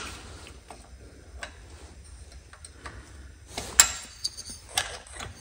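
A few light metallic clicks and ticks from pushrods and rocker arms being fitted into a Briggs & Stratton engine's cylinder head, the sharpest click a little over three and a half seconds in.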